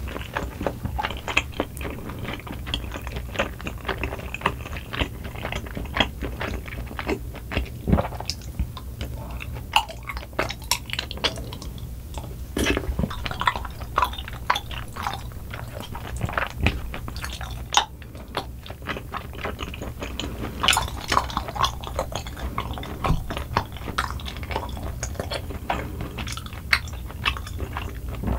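Close-miked chewing of soft, chewy rice cakes in cream sauce, with many small wet mouth clicks and smacks, over a steady low hum.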